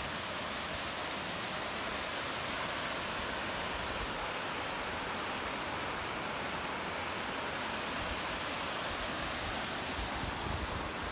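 Mountain creek cascading over granite boulders: a steady, even rush of water.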